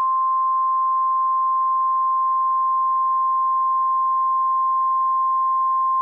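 NOAA Weather Radio warning alarm tone: a single steady, loud electronic tone near 1 kHz. It is the alert signal that a warning message follows.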